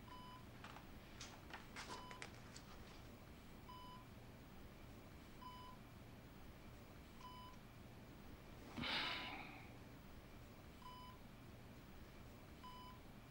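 Bedside patient monitor beeping softly, one short tone about every two seconds, over quiet room tone. A few faint clicks come early in the beeping, and a short rustle a little past halfway.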